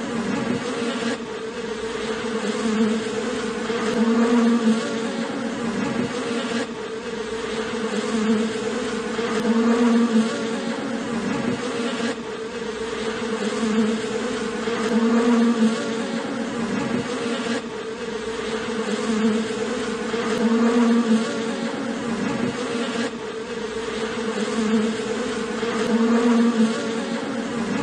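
Cluster of honeybees buzzing on their comb: a steady droning hum that swells and eases about every five seconds.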